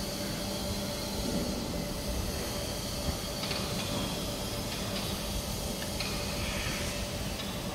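CNC grinding machine for bearing inner rings running: a steady machine hum with a hiss over it, and a few faint clicks.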